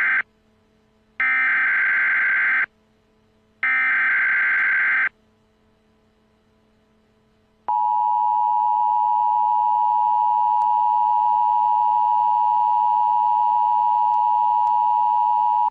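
Emergency Alert System end-of-message data bursts: the tail of one and two more harsh digital bursts of about a second and a half each. After a few seconds' pause, a steady electronic tone starts about eight seconds in and holds unchanged.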